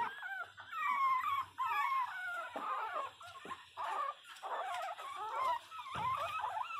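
Pinscher puppy crying: a steady run of short, high, wavering whimpers and whines, one after another.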